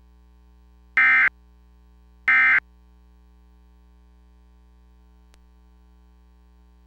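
Emergency Alert System end-of-message signal: short bursts of warbling SAME digital data tones, the tail of one burst and then two more, a little over a second apart. After them only a steady low hum remains, with a faint click about five seconds in.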